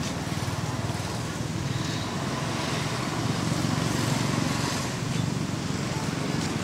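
Steady low rumbling background noise, slightly louder in the middle.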